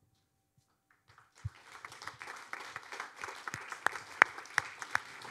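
An audience breaking into applause about a second in after a near-silent moment, many hands clapping, with some sharp single claps standing out.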